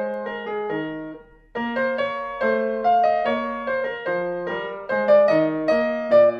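Intro music played on piano: a melody over chords, each note struck and fading away, with a brief pause about a second and a half in.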